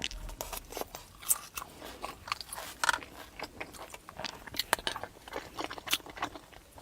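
Close-up chewing and mouth sounds of a person eating spicy tofu over rice: irregular wet smacks and clicks with no steady rhythm.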